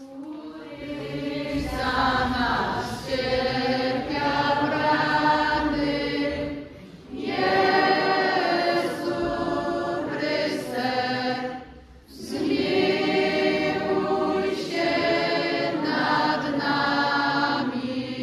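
A young choir singing together in three long phrases, with short breaks for breath between them.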